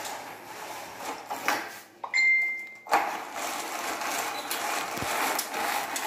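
A zebra roller blind being raised by its pull cord: the roller's clutch mechanism and cord make a steady rattling run from about three seconds in. Before that come a few light clicks and a short high squeak.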